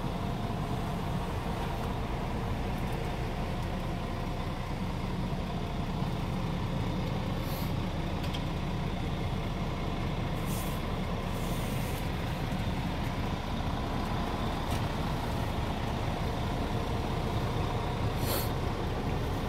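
Scania R490's 13-litre six-cylinder diesel engine idling steadily, heard from inside the truck cab. A few brief hisses come through over the rumble, about seven, ten, eleven and eighteen seconds in.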